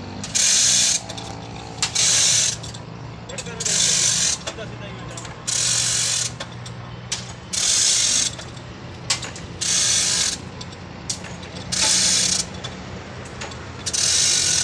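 A hand-worked mechanism gives a loud, harsh rasping stroke about every two seconds, seven or eight times, over a steady low hum.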